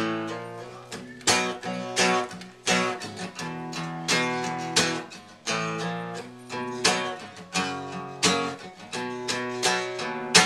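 Acoustic guitar strummed in a steady rhythm, chords ringing between the strokes, as the instrumental ending of a song. It finishes on a final, loudest strum at the very end.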